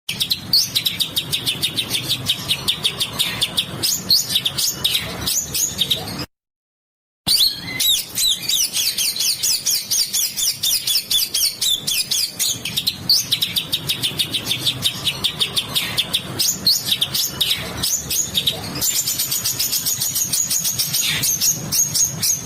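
Small songbird singing fast runs of harsh, rapidly repeated notes, the rough 'besetan' song used as masteran for training cage songbirds. The song cuts out completely for about a second a little after six seconds in, an edit in the recording, then carries on.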